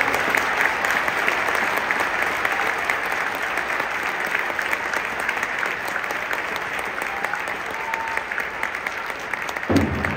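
A large stadium crowd applauding steadily. Just before the end, a deeper, louder crowd sound swells in.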